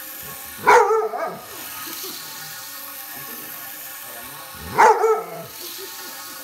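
A dog barks twice, about four seconds apart, at a running model train. The train's small motor hums steadily underneath.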